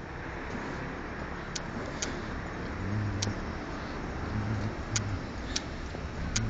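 Steady background noise like passing traffic, with about six sharp clicks scattered through it.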